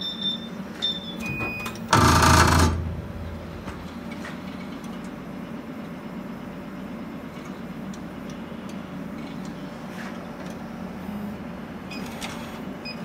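Steady low hum of a laser cutting machine and its shop equipment, idling rather than cutting. About two seconds in, a loud hiss-like burst lasts under a second.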